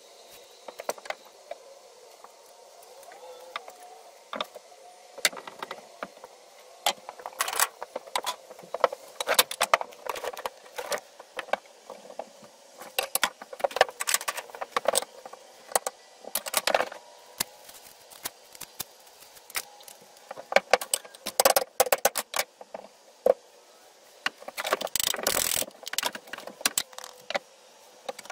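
Irregular clatter, clinks and knocks of tools and pieces of wood being handled and moved about on and around a workbench, with a denser rough handling noise about three-quarters of the way through.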